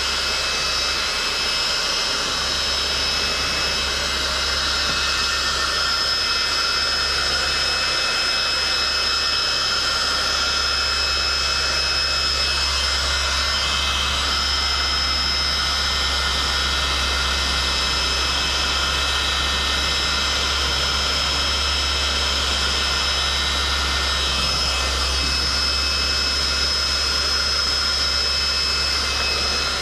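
Heat gun running steadily: a rush of blown air with a high, steady fan-motor whine and a low hum.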